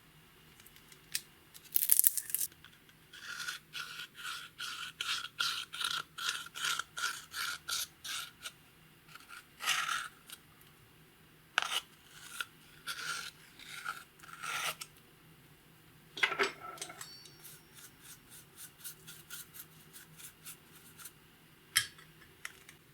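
Short scraping and rubbing strokes from makeup and clear slime being worked together: a quick run of strokes at about three a second, then slower, irregular ones.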